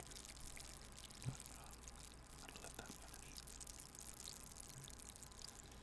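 Faint eating sounds: soft chewing with small wet mouth clicks, and one short soft knock about a second in.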